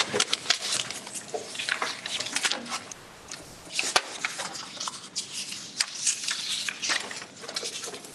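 Papers rustling with scattered light clicks and taps from handling at the tables, and a faint murmur of voices.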